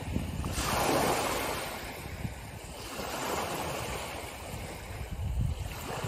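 Small sea waves breaking and washing up the shore: one wave surges in about a second in and ebbs, and the next wash builds near the end.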